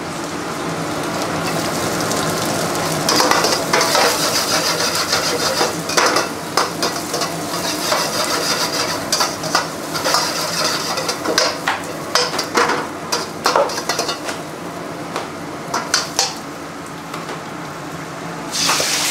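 Sliced onion and capsicum stir-frying in hot oil: a steady sizzle, louder from about three seconds in, with repeated knocks and scrapes of a utensil against the pan.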